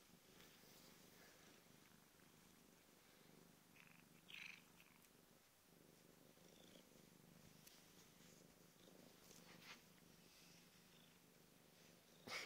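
Domestic cat purring faintly and steadily, with a couple of brief rustling sounds; the loudest rustle comes near the end.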